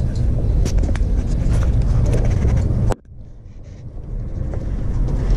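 Body-worn microphone noise while walking a dog on a leash: clothing rustle and scuffing steps over a steady low rumble, with short clicks throughout. The sound drops off suddenly about three seconds in, then builds up again.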